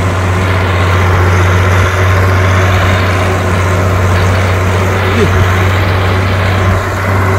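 Heavy diesel engine running steadily under towing load, with a constant low drone.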